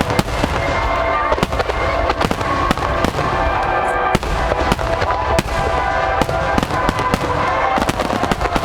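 Fireworks bursting, with frequent sharp bangs and crackling reports throughout, over continuous music with sustained tones.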